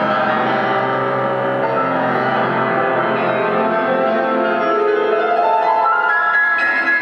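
Classical program music led by piano with sustained notes, played loud over the rink's sound system.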